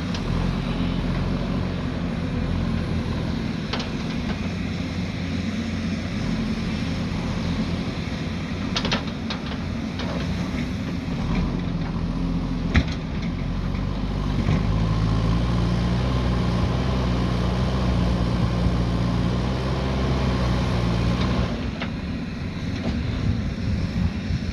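Diesel engine of a heavy earthmoving machine running under load. It gets louder for several seconds in the second half, then eases back, with a few sharp clanks in between.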